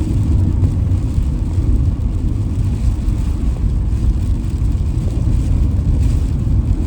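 Camper van driving: a steady low rumble of engine and road noise.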